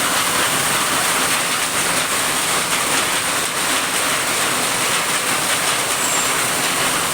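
Heavy rain pouring down, a steady, loud hiss of downpour with no let-up.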